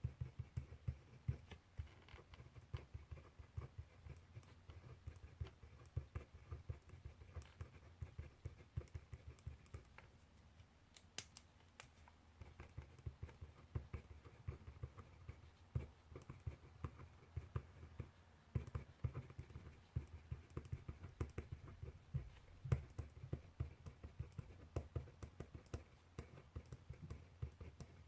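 Handwriting on paper at a desk: a quick, irregular run of small scratches and taps from the writing tool, with light knocks on the desk. The writing eases briefly about ten seconds in.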